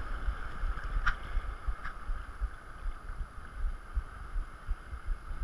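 Wind buffeting the microphone over the steady wash of small waves in shallow sea water, with two brief clicks about one and two seconds in.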